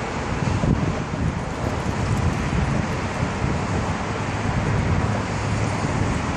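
Wind buffeting the microphone over steady road traffic noise from cars passing on a bridge roadway.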